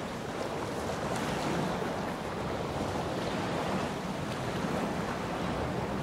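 Sea waves washing onto a beach: a steady, continuous rush of surf with no single break standing out.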